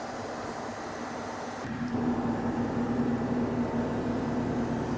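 Steady mechanical background hum with no distinct events; about a second and a half in it changes abruptly to a slightly louder hum carrying a steady low tone.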